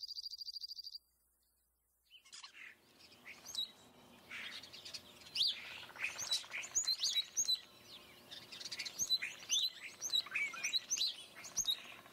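Several songbirds chirping and singing, many short high sweeping calls overlapping, starting about two seconds in. Before them a rapid, even, high-pitched pulsing trill cuts off suddenly about a second in.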